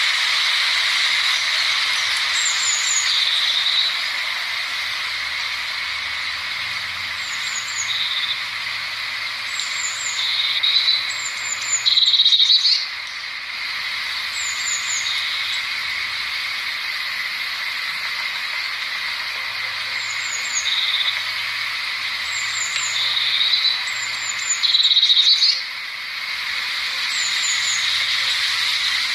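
Eurasian blue tit singing: repeated phrases of thin, high, falling notes, each followed by a lower buzzy trill, with the loudest trills about twelve seconds apart, over a steady high hiss.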